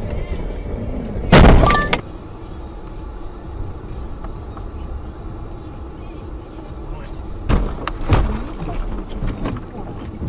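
Dash-cam recording of a car collision on a snowy road: a loud crash about a second in, with a brief metallic ring. Car noise follows, with two sharp knocks later on.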